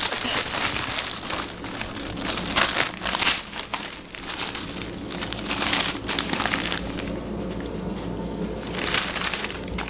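Paper crinkling and tearing in repeated rustling bursts as a puppy chews and rips it.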